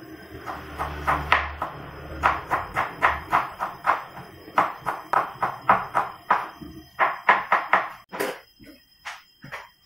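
Kitchen knife chopping on a cutting board: a steady run of sharp knocks, about three a second, that thins out to a few softer knocks near the end.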